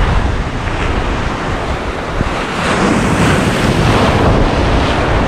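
Ocean surf breaking and foaming close around the listener in shallow water, with wind rumbling on the microphone. The wash swells louder about halfway through as a wave rolls in.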